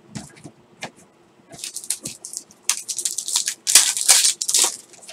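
A foil trading-card pack wrapper crinkling and being torn open by hand: a run of crisp crackling that builds and is loudest in the second half. A few light clicks of cards being handled come before it.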